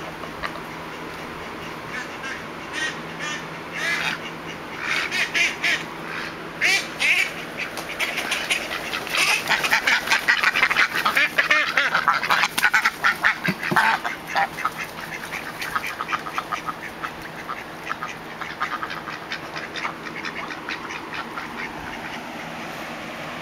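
Domestic ducks quacking: scattered quacks at first, building about a third of the way in to a loud, rapid run of quacks, then tailing off into quieter quick calls.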